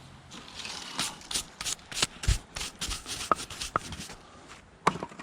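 Split firewood being handled and stacked: an irregular run of wooden knocks and scrapes as pieces are set down against one another, with one deeper thud about two seconds in.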